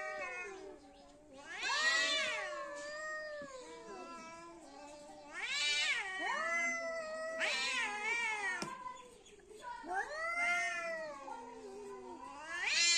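Two cats yowling at each other in a fight standoff: long, wavering caterwauls that rise and fall in pitch, swelling and fading in repeated bouts, one voice overlapping the other.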